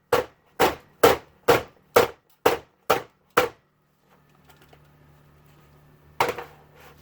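Cupcake molds filled with fresh cold process soap being rapped down on a hard surface in a steady run of sharp knocks, about two a second, stopping about halfway; two more knocks near the end. The tapping knocks air bubbles out of the soap.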